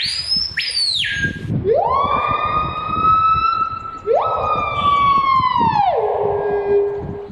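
A loud siren-like wail: a short high sweep, then two long tones that each rise quickly, hold, and fall away, the second dropping to a low steady note near the end.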